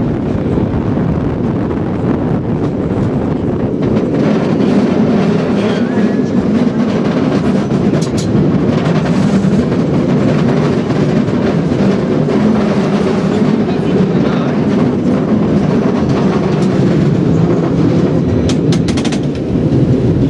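San Francisco cable car running on its rails: a steady low rumble and rattle of wheels and the running cable, with a few sharp clicks about eight seconds in and again near the end.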